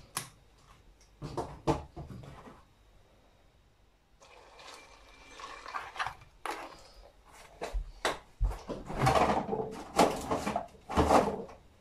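Kitchen sounds of a bowl of cereal being made up: a few knocks of a bowl and packaging being handled, then from about four seconds in a pouring sound with more knocks and thuds.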